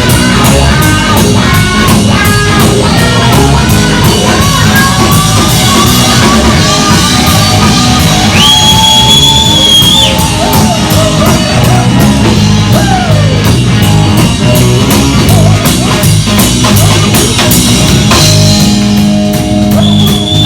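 Live rock band playing a loud blues-rock number: drums, bass and electric guitar, with long held notes that bend in pitch.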